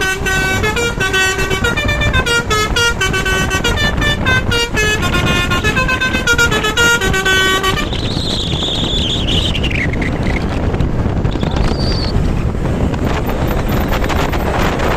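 A bus's basuri telolet horn, a multi-note musical air horn, plays a quick tune of stepped notes for about eight seconds and then cuts off, over steady vehicle noise. Shortly after it stops, a single high tone slides downward.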